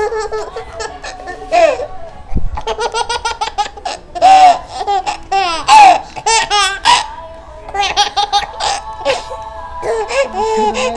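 Baby laughing in repeated high-pitched bursts of giggles, with short pauses between.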